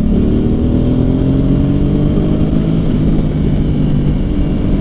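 Motorcycle engine pulling under steady acceleration, its pitch rising slowly for about three seconds and then holding, with wind rumble on the helmet microphone.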